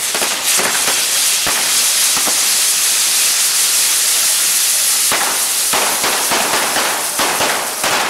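Maltese ground fireworks (nar tal-art): a frame of spinning firework wheels burning with a loud, continuous hiss from their fountains, broken by sharp cracks. About five seconds in, the cracks crowd into a dense crackle.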